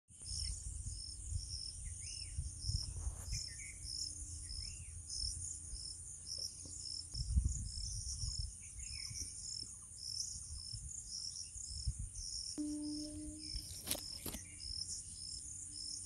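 Crickets chirping: a steady high insect drone with pulsed chirps a few times a second, a few short bird calls among them. Bursts of low rumble come and go, and near the end a short low held tone is followed by two sharp clicks.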